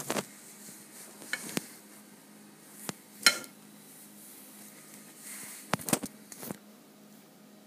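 Scattered knocks and clinks of a red glass plate and glass jars being handled and set down on a table. The loudest, with a short ring, comes a little over three seconds in, followed by a quick cluster of knocks near six seconds.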